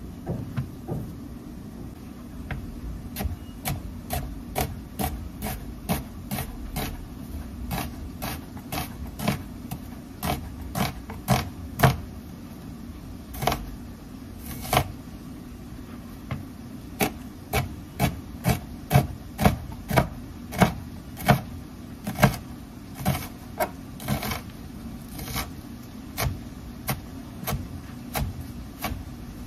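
Chef's knife chopping an onion on a plastic cutting board: a long run of sharp knocks as the blade strikes the board, coming about two a second at the busiest, over a steady low hum.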